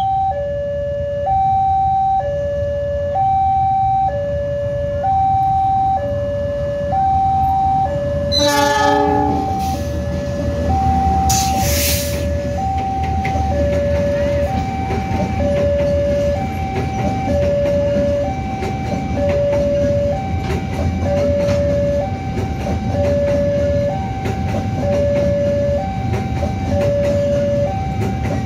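Level-crossing alarm sounding two alternating electronic tones, high then low, each about a second long, over the steady rumble of a train passing the crossing. A short horn blast comes about nine seconds in and a burst of hiss about twelve seconds in.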